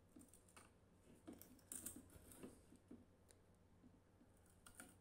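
Faint handling noise of a miniature diorama being unpacked: light clicks, taps and short scrapes of the white model board pieces under the fingers, busiest around the middle and again near the end.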